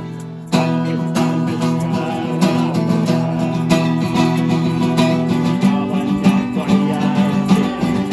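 Acoustic guitar strumming chords in a steady rhythm, with a brief drop just after the start before the strumming comes back in about half a second in.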